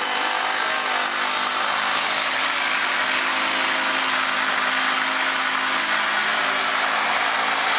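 A machine running with a steady, unchanging mechanical noise.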